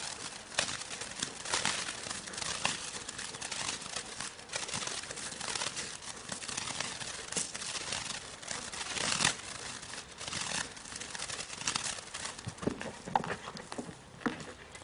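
Irregular scuffing, knocks and rustles from a Belgian Malinois and a decoy in a bite suit moving about on grass around a guarded object, with no voices.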